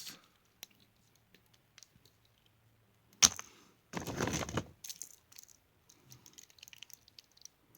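Plastic action figures being handled: scattered small clicks and knocks, a sharp click about three seconds in, then a short rustle.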